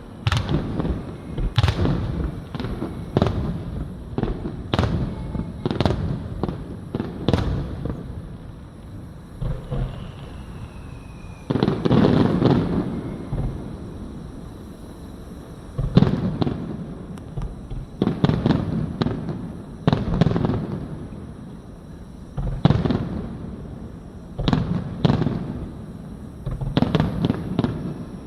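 Aerial fireworks display: a steady series of shell bursts and booms, each trailing off, coming in clusters. A longer, denser volley comes about twelve seconds in.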